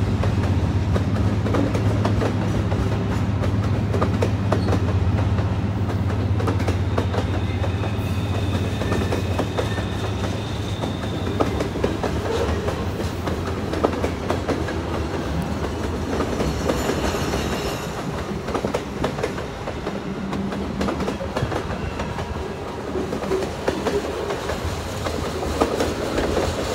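Loaded freight cars rolling past on a curve: a steady rumble with wheels clicking over rail joints. A thin, high wheel squeal comes in for a few seconds about a third of the way in.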